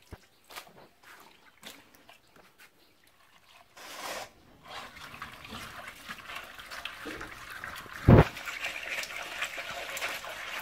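Hands washing small spotted snakehead fish in water: scattered small clicks and a brief splash, a sharp knock about eight seconds in, then steady sloshing and swishing as the fish are rubbed in a clay bowl of water.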